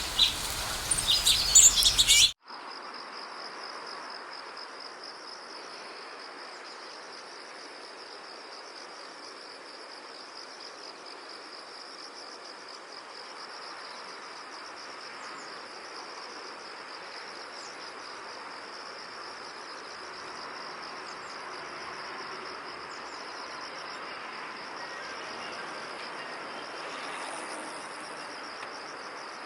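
Birds chirping densely for about two seconds, then a sudden cut to a steady, high insect trill with a few faint bird chirps over it.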